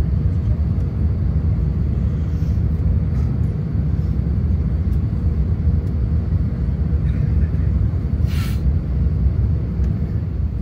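Steady low rumble of engine and airflow noise inside the cabin of an Airbus A350-1000 on descent, with a brief hiss about eight seconds in.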